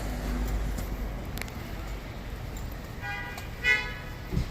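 Two short car-horn toots about three seconds in, the second louder, over the low rumble of street traffic.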